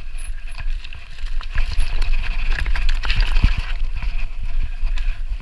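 Mountain bike rolling over loose rocks, its tyres and frame clattering with irregular knocks, over a steady low rumble of wind on the camera's microphone.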